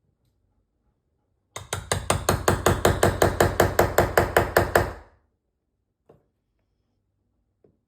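Hammer driving a wood chisel into a door jamb, a quick even run of about twenty blows at roughly six a second for about three and a half seconds, cutting the strike plate recess a quarter inch deeper. Two faint taps follow near the end.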